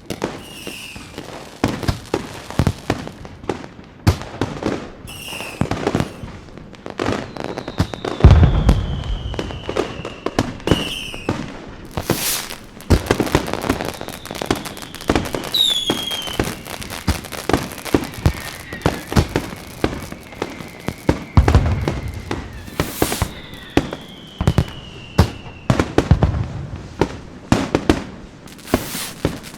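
Fireworks going off: a dense run of sharp pops and crackles, with deep booms about eight seconds in and again around twenty-one seconds, and several whistles that fall in pitch.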